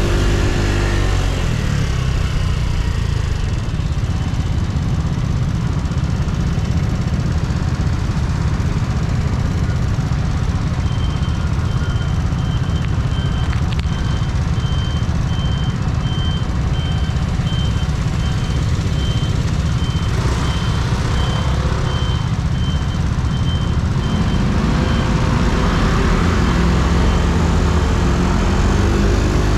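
Yamaha Cygnus X scooter's single-cylinder engine running steadily while riding. For about fifteen seconds in the middle, a regular series of short, high electronic beeps, a little over one a second, sounds over it.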